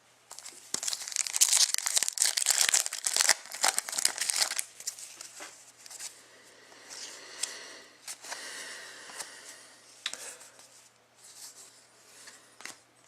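A trading card pack's wrapper being torn open and crinkled. It is loudest for the first few seconds, then turns to softer crinkling with a few sharp clicks.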